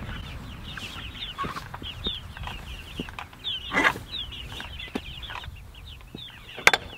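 Chickens in a chicken tractor calling continually: many short, high, falling chirps. A couple of sharp knocks break in, one about four seconds in and one near the end.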